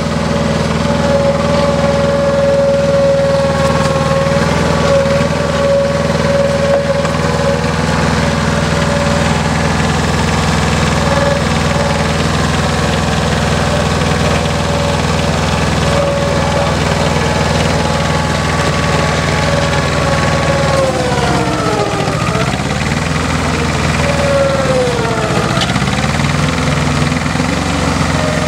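Engine of a Dando Terrier tracked drilling rig running steadily as the rig crawls through mud, with a steady whine over it. About three quarters of the way through the whine twice dips and rises again in pitch.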